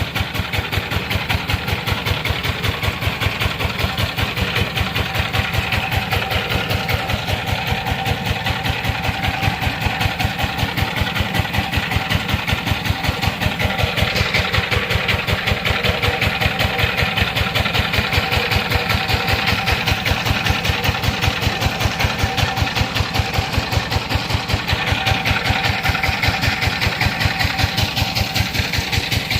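Sifang single-cylinder diesel engine running steadily, its firing strokes a fast, even beat that stays constant throughout.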